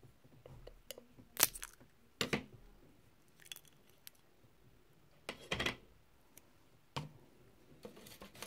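Small metal enamel paint tin being handled and its lid prised open: a string of short metallic clicks and knocks, the loudest about a second and a half in and a quick cluster over halfway through.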